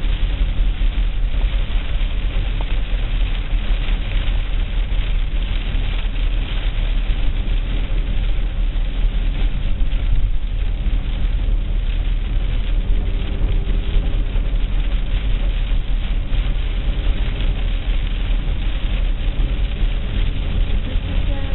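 A car on the move: a steady low rumble of engine and tyres with a crackling hiss over it, unchanging throughout.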